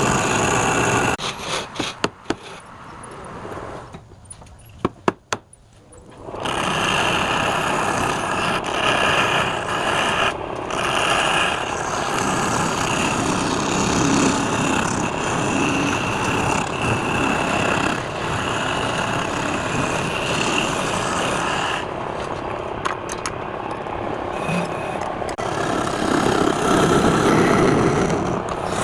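Wood lathe running while a turning tool cuts the spinning wood, a steady scraping noise with a faint high whine. It drops away for a couple of seconds about four seconds in, with a few sharp clicks, then resumes.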